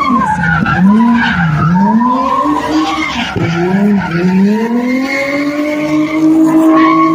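Drift car engine revving hard as the car slides, its pitch dipping and climbing again several times, then rising steadily over the last few seconds, with tyres screeching in the slide.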